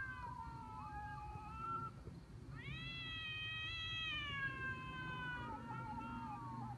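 Cats yowling in a fight: long, drawn-out wavering cries from more than one cat, overlapping. One cry falls away about two seconds in, another long one rises about half a second later and slowly sinks, and a lower yowl from a second cat overlaps it near the end.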